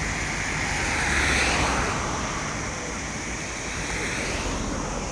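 Steady outdoor rushing noise with a low rumble, swelling a little over a second in and again around four seconds.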